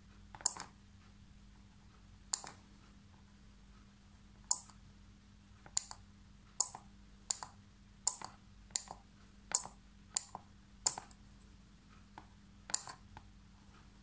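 About a dozen sharp clicks from a 555-timer latch-switch board's tactile push button and the 5 V relay it toggles on each press, switching a mains bulb on and off. The clicks come irregularly, faster in the middle of the run.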